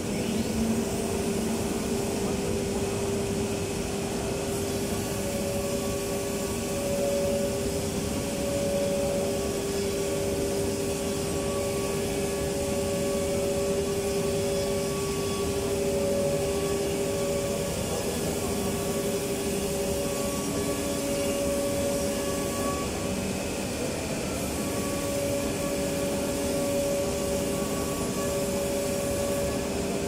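Factory woodworking machinery running with a steady mechanical drone: a constant hum with a higher whine that pulses on and off every second or so.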